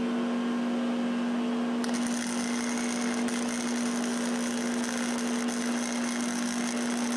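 MIG welder welding a base plate onto a car body: a steady electrical hum, joined about two seconds in by the crackle of the welding arc, which keeps going.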